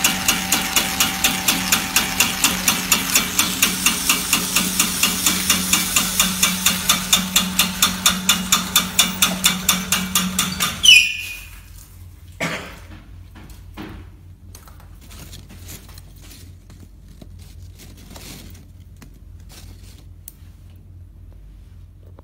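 Small corn-puff snack extruder running: a steady motor hum with a regular knocking about three times a second. It cuts off abruptly about eleven seconds in, leaving only faint scattered clicks.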